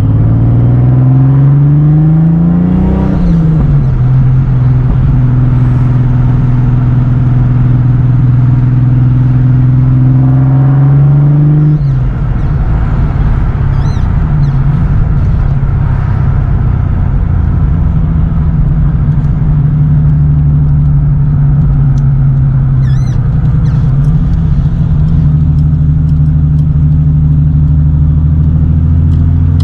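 Holden VL Calais Turbo's 3.0-litre turbocharged straight-six, fitted with a bigger turbo and on low boost, driving off. The revs climb for about three seconds, drop at a gear change, climb slowly again, drop once more about twelve seconds in, then the engine runs fairly steadily at cruise.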